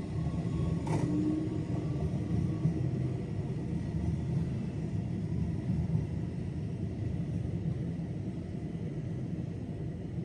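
Low, steady rumble of a train at the station, slowly fading away.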